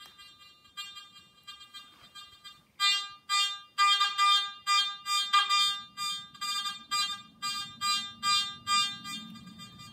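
Garrett AT Max metal detector's buzzy target tone on its stock coil, responding to a silver Walking Liberty half dollar swept over the coil: faint for the first few seconds, then pulsing loudly about two to three times a second with each pass of the coin.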